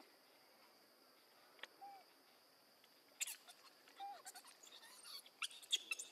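Faint clicks and crackles from about three seconds in to near the end, with two short squeaks, over a steady high insect drone, from a macaque troop grooming and shifting on rocks.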